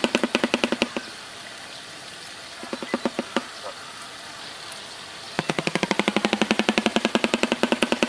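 Shoebill clattering its bill: a rapid run of hollow clacks at about ten a second that stops about a second in. After a pause with only a few scattered clacks, the clattering starts again about five seconds in.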